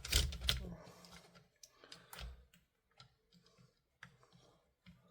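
Sharp clicks and light knocks of small plastic and metal parts being handled, a cluster in the first half-second and then single clicks about once a second, as an airsoft hop-up unit is pushed onto the barrel and worked into an AK receiver.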